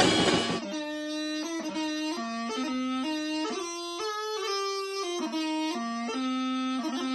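Drums and cymbals crashing, cut off about half a second in, then a bagpipe practice chanter playing a tune: a line of steady held notes broken up by quick short grace notes.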